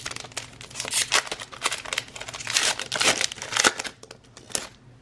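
Trading card pack wrapper crinkling and tearing as the pack is ripped open, an irregular run of crackles that is busiest through the middle and eases off near the end.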